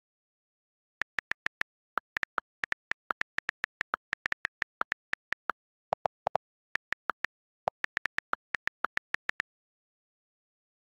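Smartphone on-screen keyboard click sounds, one short tick for each keypress, about forty in quick, uneven succession as a message is typed, stopping a second or two before the end.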